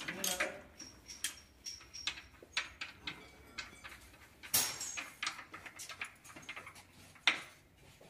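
Scattered light clicks and knocks, the sharpest about four and a half seconds in and again near the end, with faint voices in the background.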